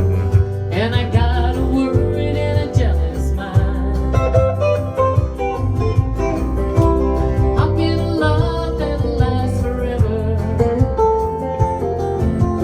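Band music in an instrumental break: guitar playing over bass and a steady beat.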